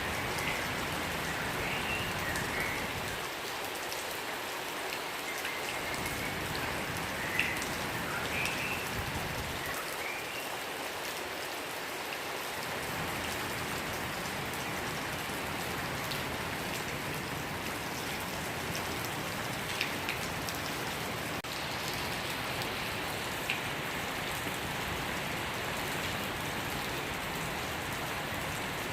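Steady rain falling on a surface, with scattered drop taps. A bird chirps briefly several times in the first ten seconds or so.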